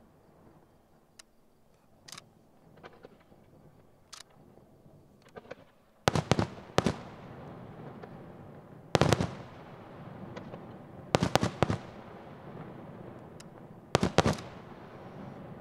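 Aerial firework shells bursting: a few light pops over the first six seconds, then loud bangs from about six seconds in, single and in quick pairs every two to three seconds, each trailing off in a rumbling echo.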